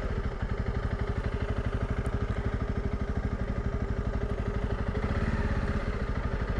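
Honda CRF300 Rally's single-cylinder four-stroke engine running at low revs as the bike rolls at walking pace, an even rapid pulse of exhaust beats.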